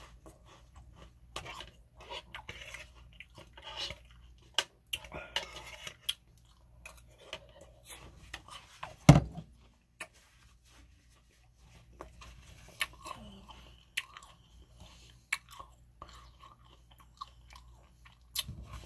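Close-miked chewing of soft food, meatloaf and mashed potatoes, with many short wet mouth clicks and smacks. A single heavy thump sounds about halfway through.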